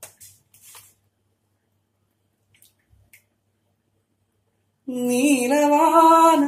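A man singing a film song unaccompanied, coming in about five seconds in with a loud held note that wavers in pitch. Before that there are only a few faint clicks.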